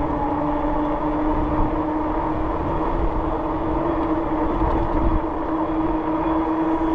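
The Rad Rover e-bike's 26 x 4 inch fat tires humming on the pavement while riding at speed: a steady droning tone, over a low, uneven rumble of wind on the microphone.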